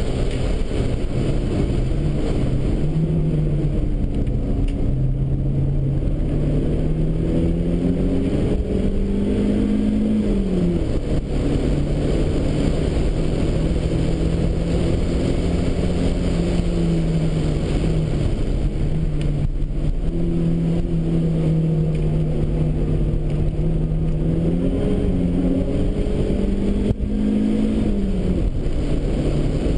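Turbocharged Datsun Bluebird race car's four-cylinder engine heard from inside the cabin under hard driving. The revs climb over the first ten seconds, drop sharply, hold steady for long stretches, then climb and drop again near the end, over a constant rumble of road and wind noise.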